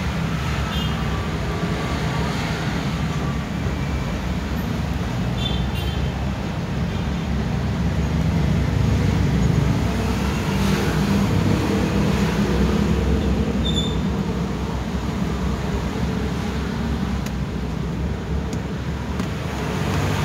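Steady low rumble of background road traffic, with a few faint clicks.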